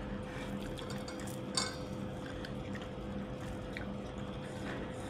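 Quiet mealtime table sounds over a steady low hum, with one sharp click of a dish or utensil about a second and a half in and a few faint ticks.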